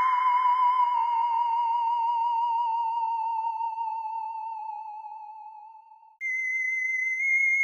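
Electronic sound-effect tone, a single clear pitch with a slight vibrato. It holds low and fades away over about six seconds. A higher tone then starts abruptly and holds steady.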